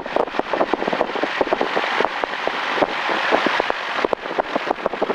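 Grumman single-engine light plane's piston engine and propeller running at low taxi power, heard from the cockpit as a steady, crackly drone.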